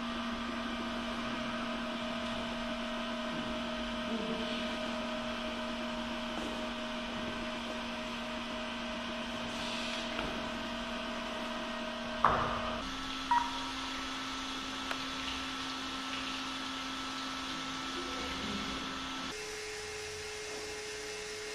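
Small electric motors and gears of an RC tow truck's flatbed mechanism whining steadily as the tilted bed is brought back level. The whine jumps to a new pitch about two-thirds of the way in and again near the end, with two sharp clicks just before the first change.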